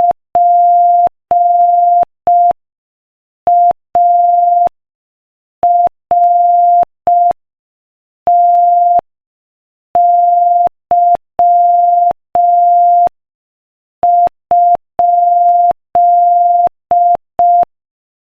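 Morse code sent as a single steady beep tone at 5 words per minute, in short dits and long dahs with longer pauses between letters. The letters read P-A-R-T-Y and then a question mark.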